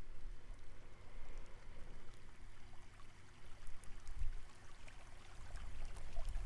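Faint, steady trickling water-like noise, as of a stream, with scattered small ticks.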